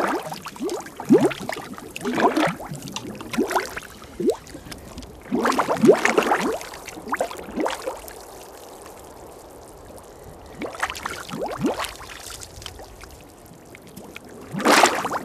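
Watery mud poured from a clay jug, glugging and splashing in several spells with short lulls between.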